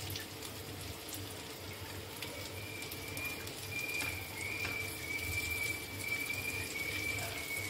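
Chana dal dhokha pieces shallow-frying in hot oil in a nonstick pan: a steady sizzle, with a silicone spatula now and then nudging and turning them. From about two seconds in, a thin, steady high whistle sounds over the sizzle.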